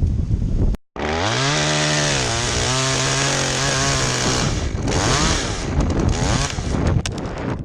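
Chainsaw revving up and cutting, its pitch settling a little lower under load for a few seconds, then revving unevenly, with a few sharp clicks near the end.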